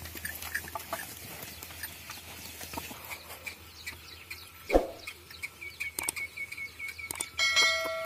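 Small birds chirping over and over across the field, with a sharp knock about halfway through and a brief ringing tone near the end.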